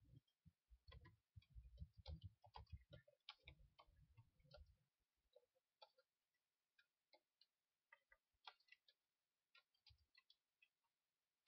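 Faint, irregular clicks of computer keyboard keys being typed, with some low thumps during the first half.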